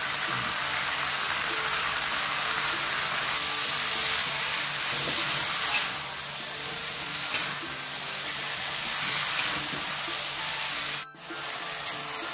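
Water spinach sizzling steadily as it is stir-fried in an aluminium wok, over soft background music. The sound cuts out for a moment near the end.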